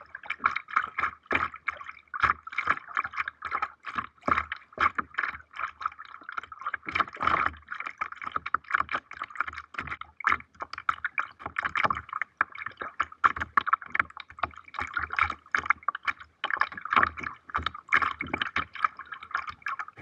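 Water splashing and gurgling close to the microphone as a kayak is paddled, a rapid, irregular run of splashes.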